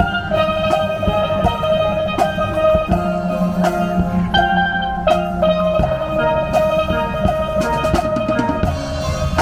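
Steel pans playing a melody of ringing, pitched notes over a drum-kit beat.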